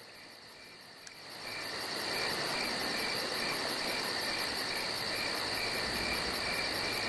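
Crickets chirping in a night-time insect chorus. It fades in about a second in, then holds steady: a high continuous trill, short chirps about twice a second, and a hiss underneath.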